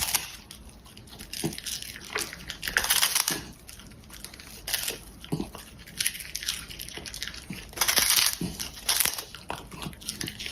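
A dog biting and crinkling plastic packaging: irregular crunching, crackling bursts every half second to a second.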